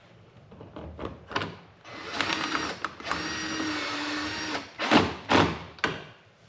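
A small cordless drill-driver runs for about three seconds, driving a screw back in by the hood bezel, its whine shifting slightly in pitch. A few sharp clacks of tools and parts being handled follow near the end.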